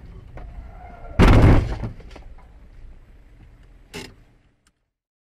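Car collision heard from the dashcam car: a low driving hum, then a loud crash about a second in that dies away quickly, a shorter sharp knock about four seconds in, and the sound cuts off abruptly soon after.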